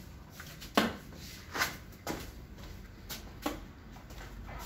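Five sharp knocks and clicks at uneven intervals, the loudest about a second in, over a low steady hum.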